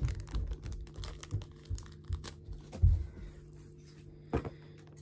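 A small plastic packet of slime add-ins crinkling and tearing as it is pulled open by hand, in quick crackles, with one dull thump near the middle and a sharp click near the end.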